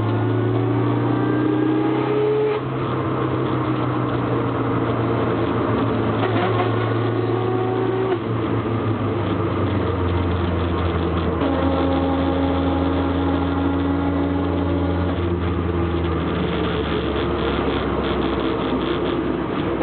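A car driving, with a steady low drone and over it a whine that rises in pitch several times as the car gathers speed. It is an abnormal drivetrain noise that the owner puts down to the differential, and he wonders whether it is limited-slip differential chatter.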